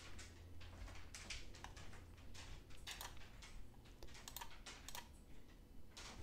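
Faint, irregular clicking of a computer mouse and keyboard.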